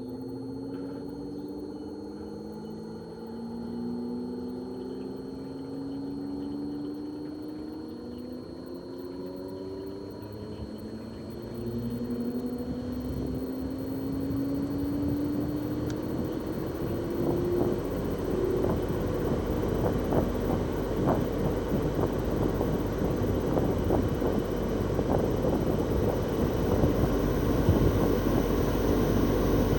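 Twin-rotary inverter compressor of a Toshiba RAS-4069AV air-conditioner outdoor unit running during defrost, its whine rising in pitch in steps as it speeds up. About halfway through, a louder rushing rumble builds up over it.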